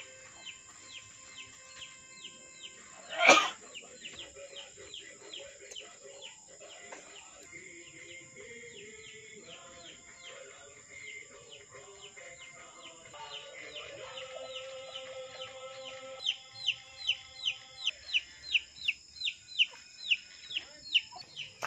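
Chicks peeping over and over, short high downward-sliding peeps about three a second, louder in the last few seconds, over a steady high insect drone. One sharp knock about three seconds in.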